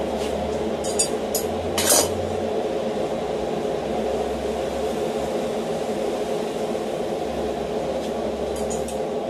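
A steady mechanical hum, with a few sharp metallic clinks about a second in and two more near the end.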